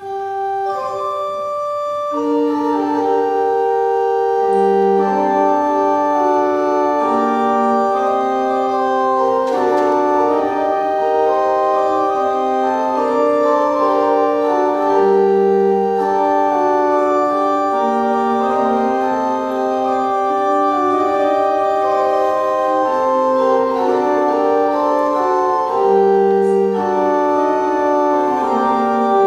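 Pipe organ starting a piece: one or two parts at first, with lower parts joining after about two seconds, then several parts moving at once in sustained notes.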